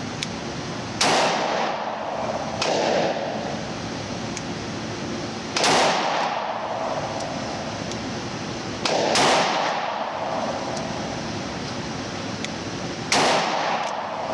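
Standard Manufacturing S-333 Thunderstruck double-barrel .22 Magnum revolver fired several times a few seconds apart, each trigger pull firing two rounds at once. Each shot echoes in an indoor range.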